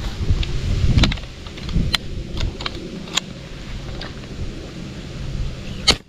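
Small clicks and knocks from an airgun being handled and aimed, over low wind rumble on the microphone, with one sharp, louder snap near the end.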